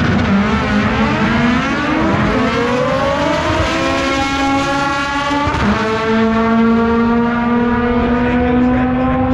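Drag race cars accelerating hard down the strip, the engine note climbing steadily in pitch, dropping sharply at a gear shift about five and a half seconds in, then climbing again.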